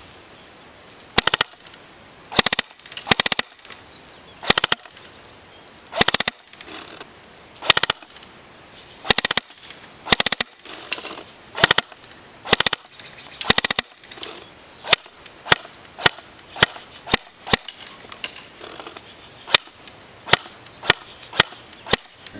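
CYMA Thompson M1928 airsoft electric gun firing: sharp snaps, in short bursts in the first half, then single shots about every two-thirds of a second.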